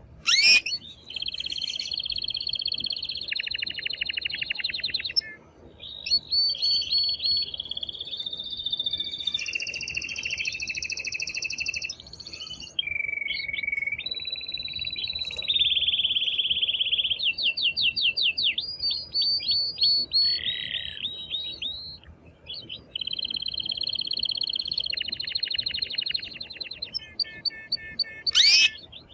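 Male canary singing hard: phrase after phrase of fast rolling trills and held whistled notes, with short breaks between tours and a sharp, loud sweeping note just after the start and again near the end. This is the loud, excited song of a male canary in breeding condition.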